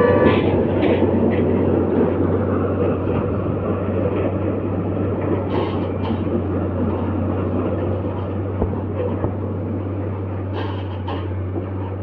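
Diesel engine of a rail track-laying machine with its train of sleeper wagons running, a steady rumble over a constant low hum that slowly fades, with a few short higher-pitched noises from the machinery.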